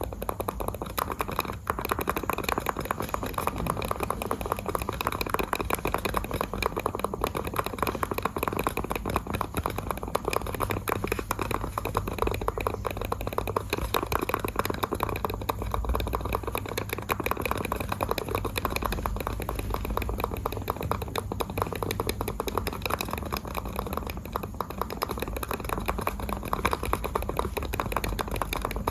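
Computer mouse buttons clicked rapidly and without a break, a dense run of small sharp clicks at a steady level.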